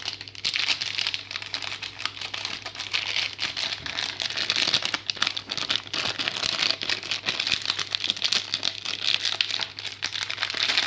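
Packaging bag crinkling and rustling continuously as it is torn open and rummaged one-handed to get the cable out, with many small crackles throughout.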